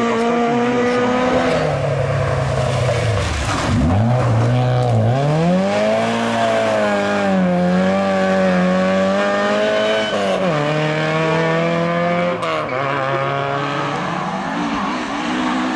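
Rally car engine revving hard. Its pitch drops sharply a few seconds in, climbs back and holds high with smaller dips, with tyre noise underneath.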